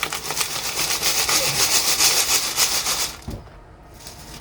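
Gravel and small stones rattling and rasping as they are shaken hard, a fast steady rattle that stops suddenly about three seconds in, followed by a single knock.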